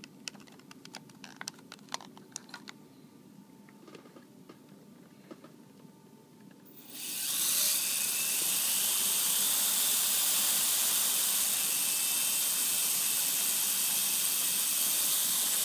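A run of sharp plastic clicks as the canopy of a WLtoys V222 toy quadcopter is fitted over its circuit board. About seven seconds in, its four small electric motors and propellers spin up to a steady, high, hissing whir that holds until it stops near the end.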